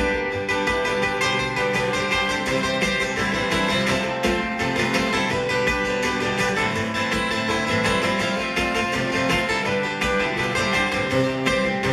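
Country-folk band playing an instrumental break between verses, with acoustic guitar strumming over a steady rhythm.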